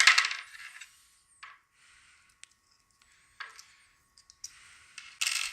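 Small metal lock parts and picking tools being handled: a short metallic rattle at the start, a few faint clicks and scrapes, and another rattle near the end.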